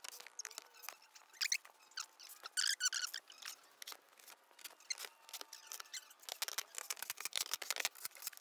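Scattered light clicks, ticks and brief plastic squeaks as screws are fitted around a plastic underbody pan and the pan is handled.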